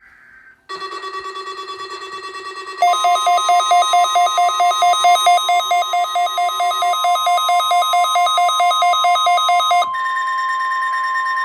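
Electronic weather-radio alert tones for a required weekly test. A short buzz of data noise comes first. About a second in a pulsing beep starts, and about three seconds in a louder, fast two-pitch beeping, about four beeps a second, sounds over a steady tone. Near the end the beeping stops and steady tones remain.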